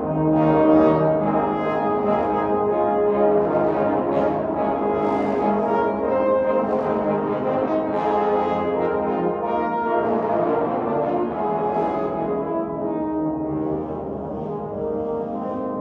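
Trombone choir with a featured bass trombone soloist playing, several parts sounding together in sustained chords and moving lines.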